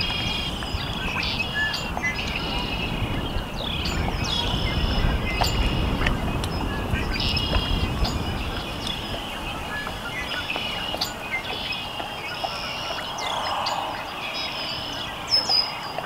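Dense chorus of spring peepers: many high, short peeps overlapping without a break, with birdsong from red-winged blackbirds mixed in. A low rumble underneath fades out about halfway through.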